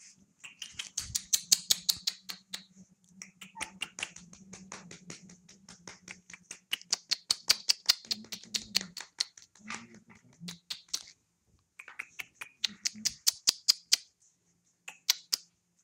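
Puppies' claws clicking on a tiled floor as they scamper about: fast runs of sharp ticks with short pauses. A faint low hum sits under the first half.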